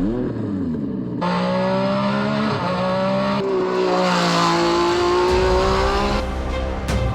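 Race car engine revving, its pitch stepping up and down and gliding, with an abrupt change about a second in.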